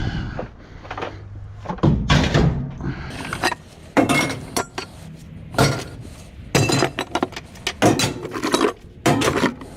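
Pieces of scrap aluminum, lawnmower motor casings among them, being tossed one after another onto a pile, clanking and clattering as they land. There are about seven or eight separate clanks at irregular intervals.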